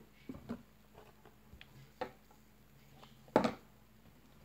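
Several short clicks and soft knocks from oily hands working slime and handling its container. The loudest comes about three and a half seconds in.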